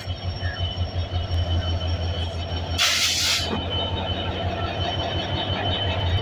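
Bangladesh Railway diesel locomotive rolling slowly past, its engine running with a deep, steady low rumble. A short hiss cuts through about three seconds in.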